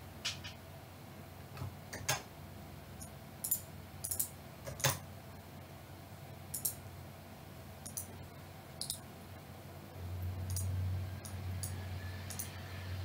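A cat licking another cat's head and fur: scattered soft clicks and smacks at irregular intervals. A low steady hum sets in about ten seconds in.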